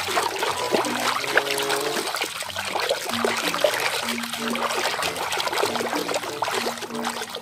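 Water splashing and sloshing continuously as a hand churns vigorously through a tub of water, scrubbing a small toy figure.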